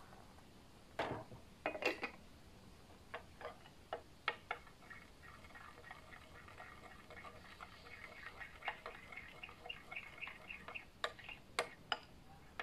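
A spoon stirring milk powder and water into a thick paste in a small bowl, tapping and scraping against the bowl. There are a few sharp knocks in the first seconds, then a run of quick, light ticks for several seconds, and two more knocks near the end.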